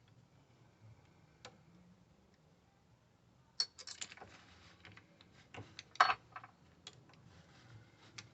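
A scatter of light clicks and knocks, like small hard objects being handled and set down, starting about three and a half seconds in with the sharpest knock about six seconds in, over a faint steady low hum.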